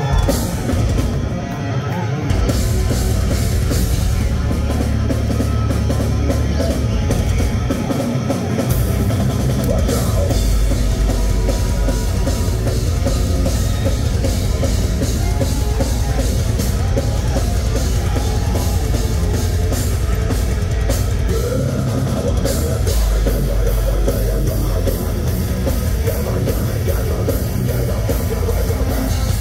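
Metalcore band playing live and loud, with pounding drums and distorted guitars; the full band kicks in about two seconds in.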